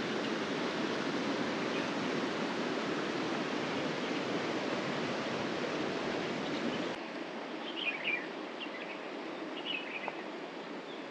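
Steady rushing outdoor ambience of the river. About seven seconds in it cuts to a quieter ambience with a few short bird chirps.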